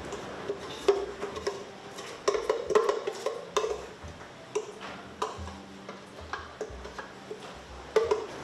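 A utensil scraping and knocking against a metal mixing bowl as thick cake batter is scooped into a round cake tin: irregular clinks and knocks, many with a short metallic ring.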